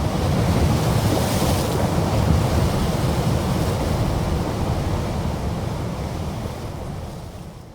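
Deep rushing noise with a heavy low rumble, a horror sound effect; a brighter hiss swells about a second in, and the whole sound fades away over the last two seconds.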